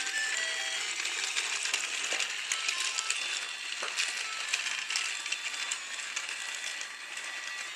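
Battery-powered Trackmaster Thomas the Tank Engine toy running along plastic track, its small motor and gearbox whirring steadily with a fine, rapid clicking of wheels and gears.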